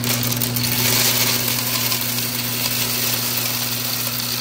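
Skittles pouring from a plastic jar into a candy vending machine's hopper: a dense, steady rattle of many small hard candies landing, over a steady low hum.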